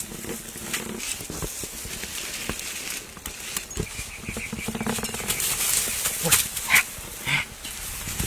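Leaves and stems rustling and crackling as a person pushes through dense undergrowth, with a few short dog-like animal calls. There are sharper bursts of noise about two-thirds of the way through.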